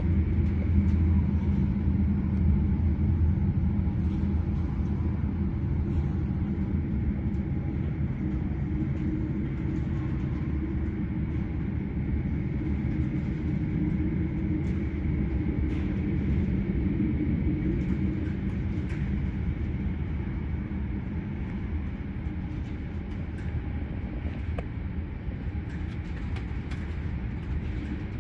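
Jet airliner engines giving a steady low rumble that slowly fades, with a faint high whine above it.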